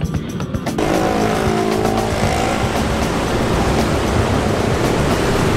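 Background music for about the first second, then loud, steady street noise of a car driving close by.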